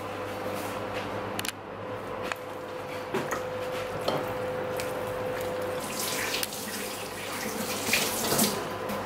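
Kitchen tap running into a stainless steel sink, a steady rush of water, with a few clicks and knocks, the loudest near the end.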